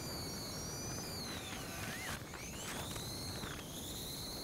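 Electric bike's rear hub motor whining under power at speed, the whine dipping in pitch about halfway through and climbing back, over steady wind and tyre rush.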